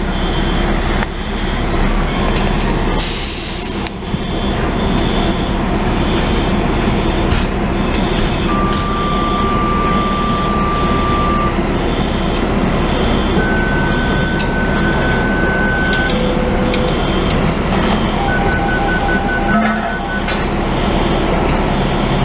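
Fire truck's diesel engine running loud and steady, with the building's fire alarm pulsing high in the background about once a second. A few separate steady beeping tones come in over the second half.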